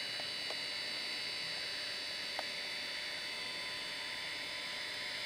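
Steady hiss with a faint high-pitched whine and a thin hum, the self-noise of a night-vision camcorder recording in a quiet night. Two faint ticks, about half a second in and about two and a half seconds in.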